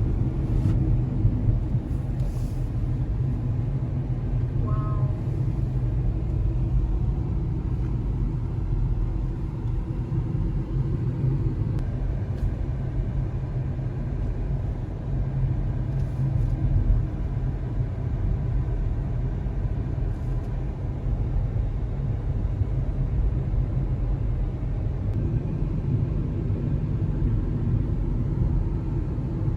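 Car cabin noise while driving: a steady low rumble of tyres and engine on the road.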